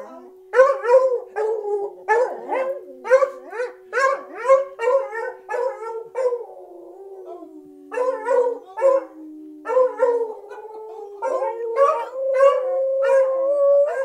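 Beagles baying: sharp barks about two a second over a long, drawn-out howl that steps down in pitch. The barking thins out about six seconds in, then picks up again over another long howl that rises slightly near the end.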